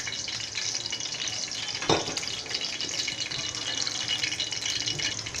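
Cooking oil heating in a kadhai, crackling and sizzling steadily as it comes up to temperature for a tempering of mustard seeds and cumin. One short knock about two seconds in.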